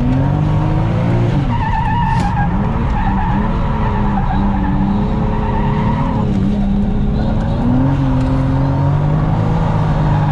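Toyota JZX100 Mark II's turbocharged straight-six heard from inside the cabin, revving up and down again and again through a drift, with tyres squealing.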